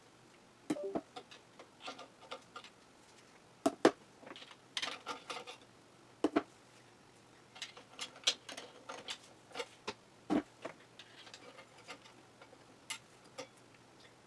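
Irregular clicks, clinks and light knocks of small metal engine parts being handled and set down, with a few short ringing taps.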